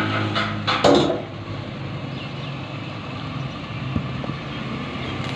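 A few quick sharp strikes in the first second, the last one loudest. Then a steady low mechanical hum.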